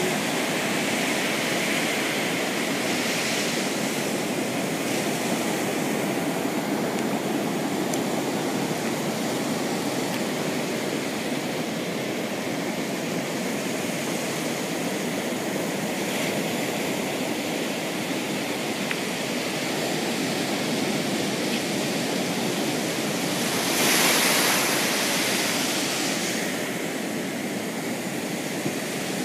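Ocean surf breaking and washing up a sandy beach, a steady rushing hiss of waves. About 24 seconds in, one wave rushes in louder for a couple of seconds.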